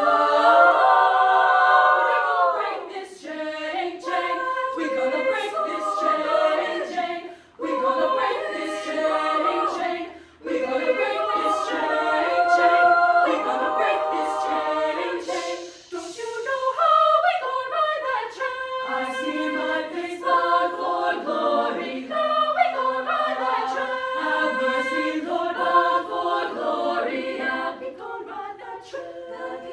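A high school vocal ensemble singing a cappella in close chords, with two short breaks in the sound, about 7 and 10 seconds in.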